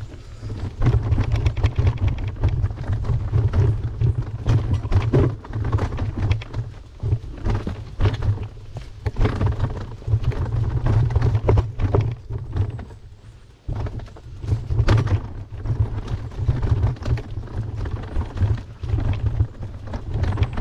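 Wind buffeting a bike-mounted camera's microphone while cycling, a heavy rumble that swells and fades, with short knocks and rattles from the bike and road.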